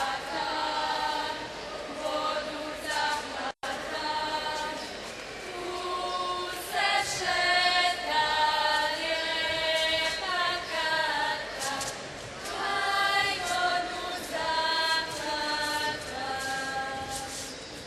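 A group of young women singing a traditional folk song together, without instruments, in phrases with short breaks between them. The sound cuts out completely for an instant about three and a half seconds in.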